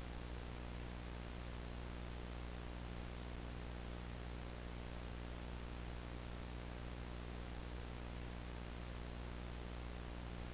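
Faint steady hiss with a low electrical hum and its overtones: the background noise of old videotape footage with no picture.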